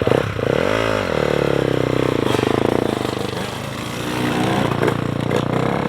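Motocross bike engine revved up and straight back down about a second in, then running on with its pitch slowly rising and falling.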